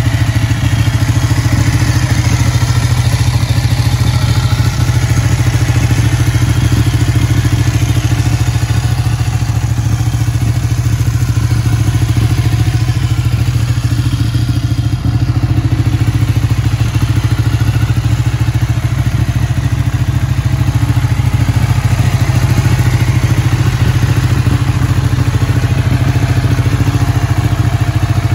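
Ducati 1199 Panigale's 1198 cc Superquadro V-twin idling steadily, a rapid even beat of firing pulses.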